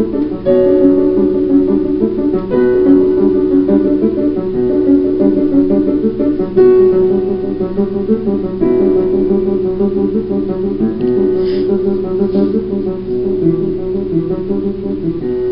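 Music from a film soundtrack: plucked guitar-like strings play a quick repeating figure over a steady held note.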